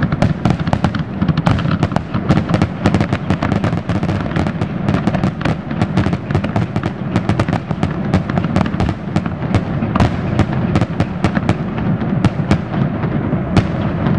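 Aerial firework shells bursting in a rapid, unbroken barrage of overlapping bangs, several a second, over a constant low rumble.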